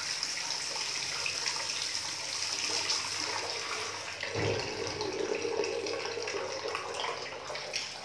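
Water from a bathroom sink's mixer tap running hard into a ceramic washbasin, turned on to show the water pressure. A dull knock about four seconds in as the tap handle is turned, after which the running water sounds different.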